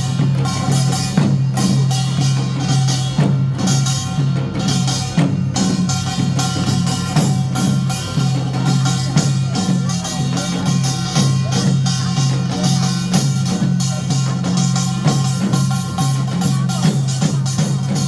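Loud live music with dense, fast drumming over a steady low held tone.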